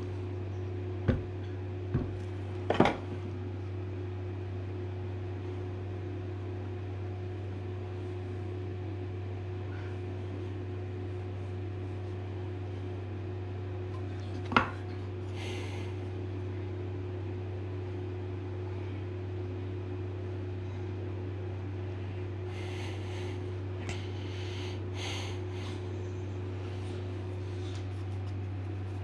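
A few sharp knocks of wooden toy-truck parts being set down and fitted together on a workbench, three in the first few seconds and one about halfway, with some brief rustling later, over a steady low electrical hum.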